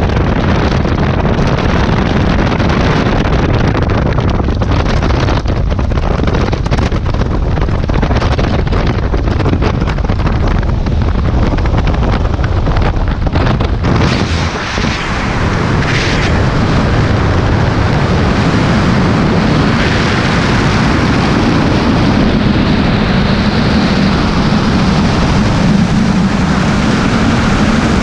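Loud wind rush buffeting a helmet-camera microphone, mixed with the noise of a light plane's engine and propeller, as skydivers hang outside the open door of a high-wing plane. About halfway through they let go, and it turns into the steadier, smoother rush of freefall wind.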